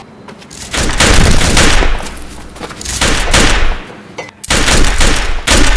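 Automatic gunfire sound effects in three long bursts of rapid shots: the first about a second in, a shorter one around three seconds, and a last one starting near the end.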